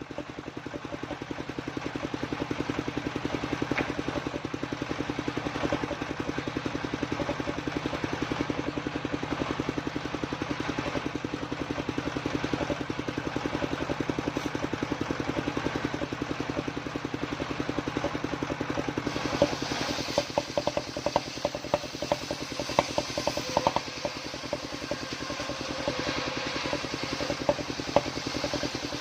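Engine driving a homemade circular saw, running steadily with a fast even pulse. About two-thirds of the way through, a scatter of clattering ticks and a brighter hiss join in.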